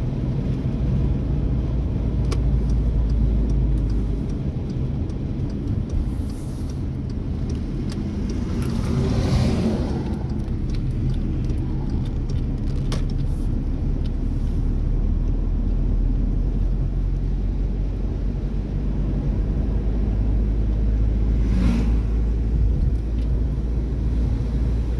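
Steady low rumble of a moving car's engine and tyres on the road, heard from inside the cabin. Two brief louder swells of noise, about nine seconds in and again near twenty-two seconds.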